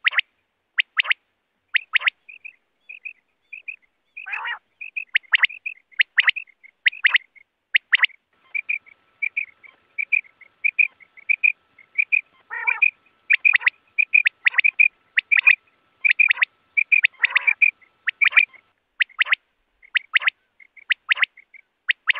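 Quail calling over and over with short, sharp calls about once or twice a second. Strings of quick, high, short notes come in between the calls, briefly about two seconds in and again for most of the middle.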